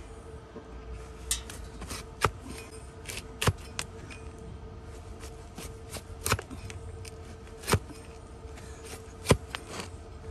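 A large flat hoof knife slicing through a donkey's overgrown hoof horn, a series of sharp, crisp cuts at uneven intervals, about six loud ones with fainter scrapes between.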